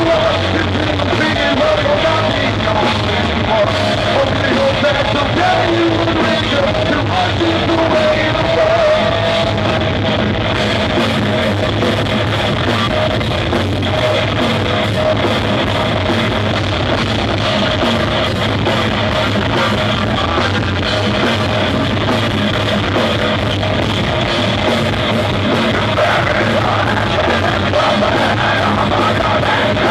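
Live rock band playing loud: electric guitars and drums with a singer on the microphone, heard from the front of the crowd.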